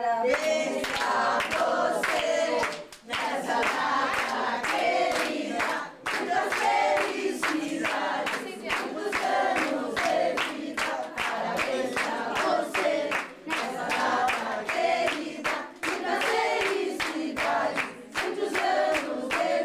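A group of people singing together, with steady rhythmic hand clapping throughout.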